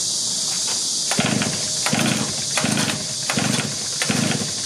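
Two-stroke backpack brush cutter engine being cranked again and again on its recoil starter without catching: a low chugging pulse about every 0.7 s, starting about a second in. A steady high insect drone runs underneath.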